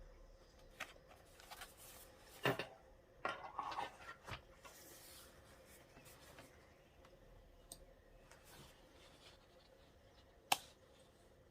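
Hand-work sounds of a notebook and its small accessories being handled: a few scattered clicks and rustles, a louder clatter about two and a half seconds in, a run of scrapes and clicks around three to four seconds, and one sharp click near the end.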